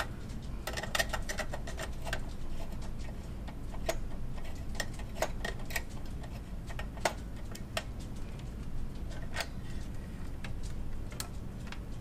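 Irregular small clicks and taps of hand and tools on the CPU heat sink and case as the heat sink is unscrewed and worked free, over a steady low background hum.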